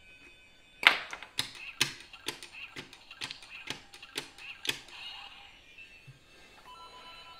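Plastic LEGO bricks clicking and clattering as pieces are handled and pressed together: a quick run of sharp clicks, the loudest about a second in, thinning out to faint handling noise after about five seconds.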